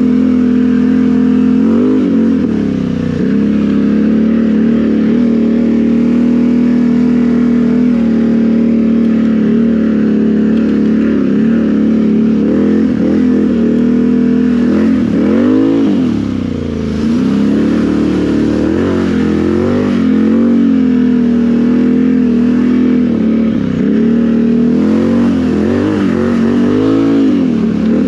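Can-Am Renegade XMR 1000 ATV's V-twin engine, fitted with RJWC dual exhaust pipes and a Monster Tune, running under way. It holds steady revs, and the pitch drops and climbs back three times as the throttle is eased off and reapplied, most deeply about halfway through.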